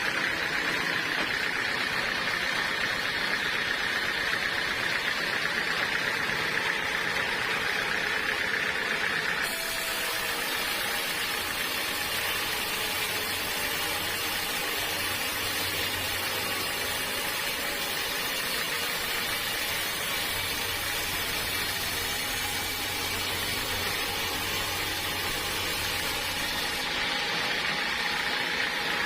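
Sawmill machinery running with a steady mechanical noise. The sound changes abruptly about a third of the way in and again near the end.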